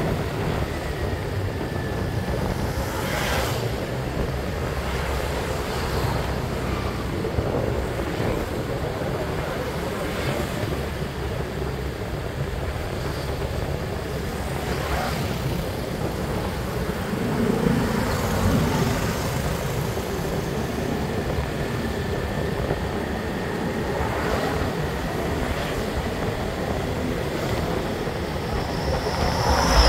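A motorbike riding along a town road: steady engine hum with tyre and road noise, and other motorbikes and cars in the traffic around it.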